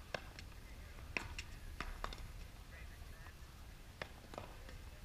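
Pop tennis rally: solid paddles striking a tennis ball, with the ball bouncing on the hard court, as a series of sharp, short pops at uneven intervals, a cluster of them in the first two seconds and two more around four seconds in.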